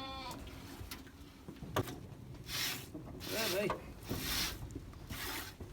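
A run of rhythmic swishing, rasping strokes, about one a second, with a brief pitched call between them.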